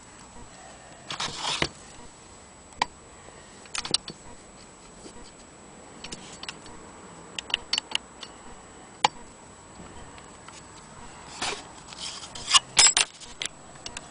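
Scattered metal clicks and short scrapes as an 1890s Victorian sewing machine is handled: its round painted cover plate and a small knob are moved by hand. A longer scrape comes about a second in, and a quick run of clicks near the end.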